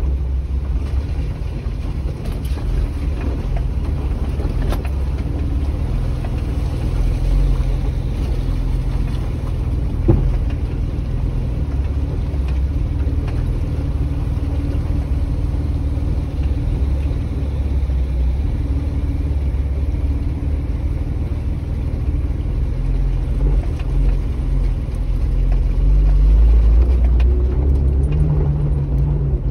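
Four-wheel drive's engine and drivetrain rumbling steadily under load, heard from inside the cabin as it drives through a shallow river crossing and up a dirt track. There is a single knock about ten seconds in, and the engine note rises and grows louder near the end.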